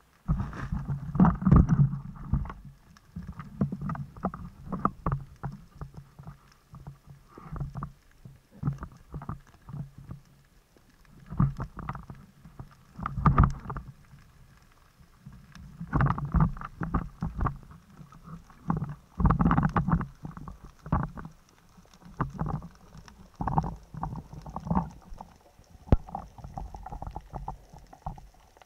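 Underwater handling noise: irregular muffled thuds, knocks and clicks of the speargun and gear being moved and knocked about underwater, coming in uneven clusters every second or two.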